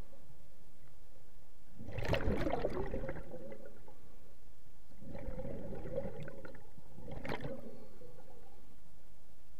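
Scuba diver's exhaled bubbles from the regulator, heard underwater: a burst of bubbling about two seconds in and a longer one from about five to seven and a half seconds, in the rhythm of breathing.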